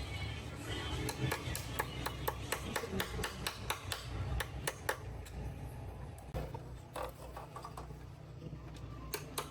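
A run of sharp clicks and knocks, several a second and unevenly spaced, over background music with a low hum.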